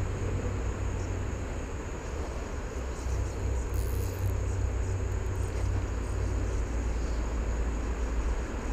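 Steady outdoor creek-side ambience: flowing stream water with a low rumble under it and a thin, steady high insect buzz over it. There is a brief hiss about four seconds in.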